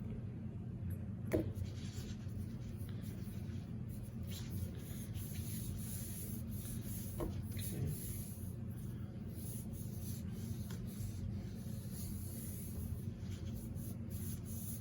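Fingers rubbing and spreading grease along the inside of a rocket motor case, a soft scratchy handling sound with a couple of small knocks over a steady low hum.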